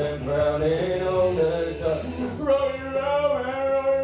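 A man singing into a microphone, holding long drawn-out notes that slide between pitches, with a steady low backing underneath.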